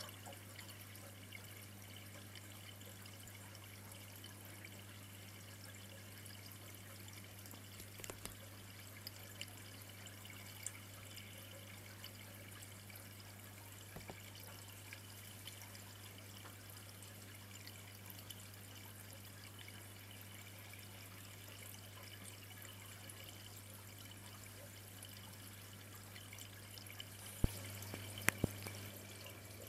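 Faint aquarium water trickling and dripping over a steady low hum, with scattered light clicks and a short cluster of sharper clicks near the end.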